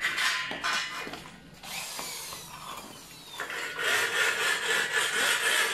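Corded electric drill boring into a steel roll-up door guide rail. After a quieter stretch it settles into a loud, steady grinding whir about three and a half seconds in.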